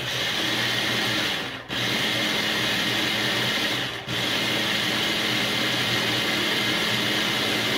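Small electric food processor running, its motor head pressed down to give a thick cauliflower purée a last blend. It runs steadily, cutting out briefly about a second and a half in and again about four seconds in.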